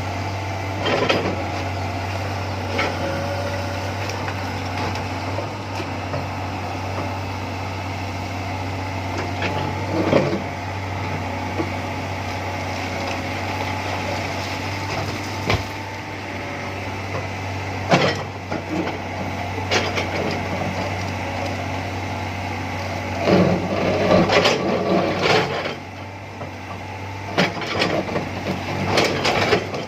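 Excavator's diesel engine running steadily with a low drone, with occasional sharp metallic knocks and a burst of clattering about three quarters of the way through.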